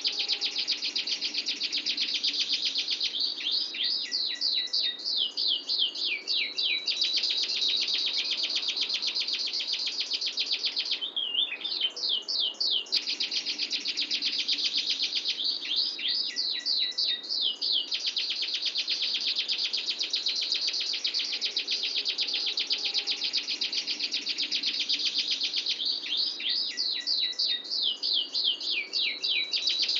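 Domestic canary singing a long, unbroken rolling trill (ngerol), very fast and high. Four times the trill gives way to a run of quick swooping notes before rolling on again.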